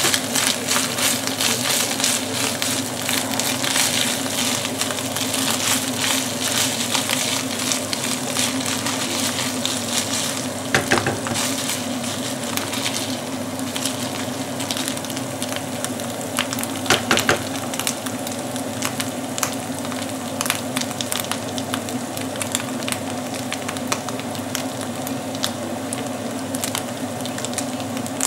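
Minced meat sizzling and crackling in a frying pan while it is stirred with a wooden spoon. The crackle is densest in the first half and thins later, with two sharper knocks around the middle and a steady low hum underneath.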